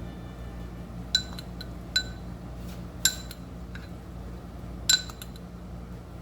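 A metal spoon clinking against the cupcake pan as a spoonful of butter is put into each cup: four sharp ringing taps a second or so apart, with a few fainter ticks between them.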